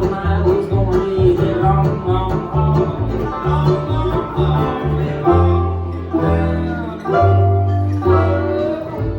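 A bluegrass band playing live, an instrumental passage with banjo and guitar over a low bass line that changes note about every half second.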